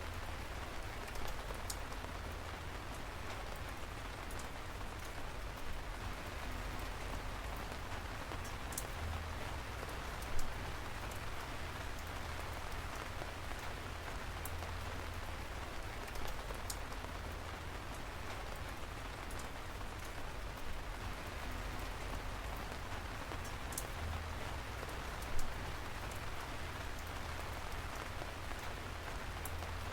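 Steady rain falling, with scattered drops ticking sharply and a low rumble underneath. Two louder drop hits come about ten seconds in and again near the end.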